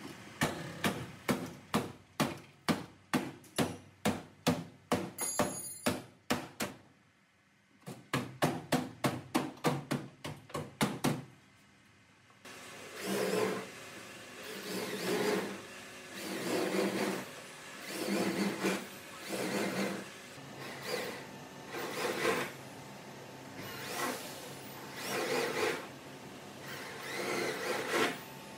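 Hammer blows ringing on the crumpled sheet metal of a car body, about two to three a second, with a brief pause. About halfway through they give way to a handheld power saw cutting the body panels in short bursts of about a second each.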